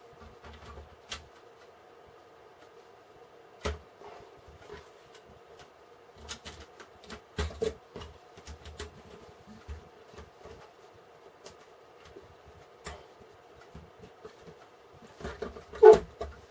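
Plastic building bricks being handled and clicked together, with scattered sharp clicks and rustling of parts over a faint steady hum; the loudest click comes near the end.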